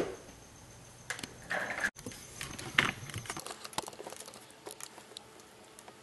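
Scattered small clicks, taps and rustles of jumper wires being handled on a solderless breadboard.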